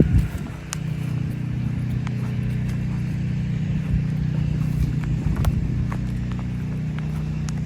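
An engine running steadily with a low hum, along with footsteps and a few sharp clicks from someone walking over storm debris.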